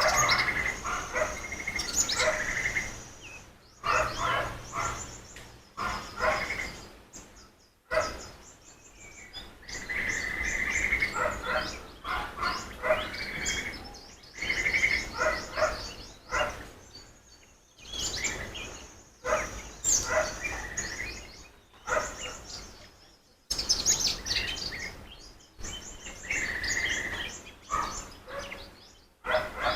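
Songbirds singing, repeating short phrases of chirps and fast trills with brief pauses between them.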